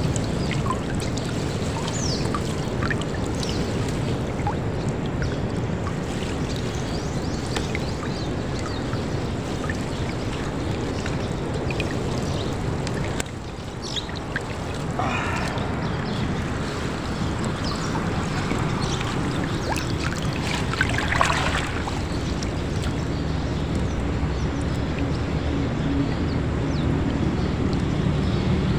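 Water splashing and trickling off a gill net as it is hauled hand over hand over the side of a boat, with scattered small knocks. A low steady hum runs underneath and grows louder near the end.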